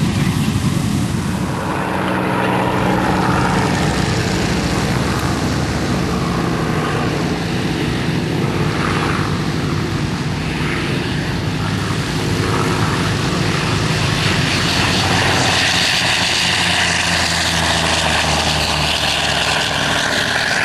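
F4U Corsair's Pratt & Whitney R-2800 radial engine and propeller running at high power on the takeoff run. A loud, steady drone with a rasp that grows stronger in the last few seconds.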